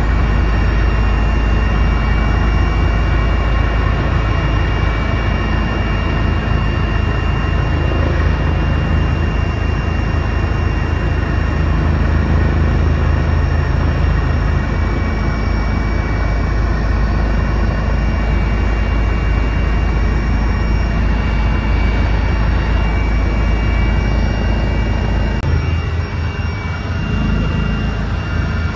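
Helicopter heard from inside the cabin in flight: a loud, steady drone of the turbine engine and rotor, with a low rumble under several steady whining tones.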